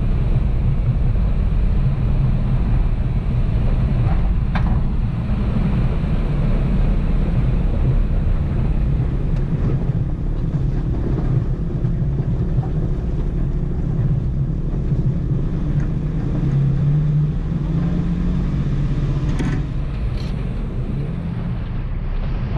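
Toyota Tacoma pickup driving along a rocky dirt track: a steady low rumble of engine and tyres on gravel, with a few clicks.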